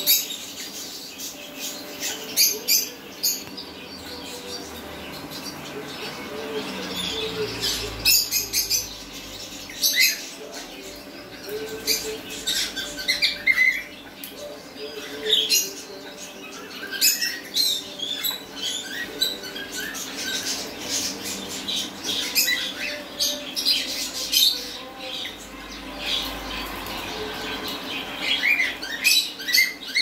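Small parrots squawking and chirping in short, sharp, high calls at irregular intervals, over a faint steady hum.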